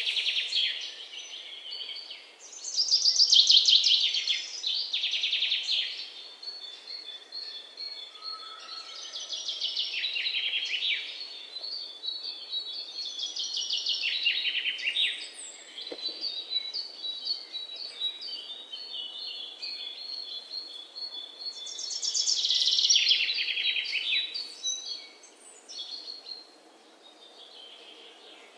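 Birds singing: a loud, fast trilled phrase comes again every several seconds, with a thin, steady high chirping between the phrases.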